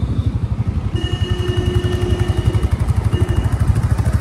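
Motorcycle engine running steadily as the bike rides along, a rapid, even throb. A steady tone sounds over it for a second or two, about a second in.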